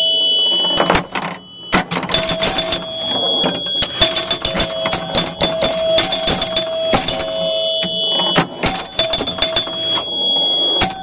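Electromechanical pinball machine in play, heard from under the playfield: rapid clicking and clacking of relays, switches and coils firing, with bells ringing on and off. The sound drops off briefly about a second in.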